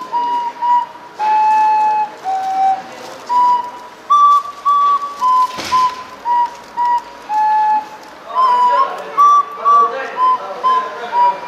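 A child playing a simple tune on a wooden recorder: a melody of clear single notes, mostly short and separated with a few held longer. A brief noise cuts in about halfway through.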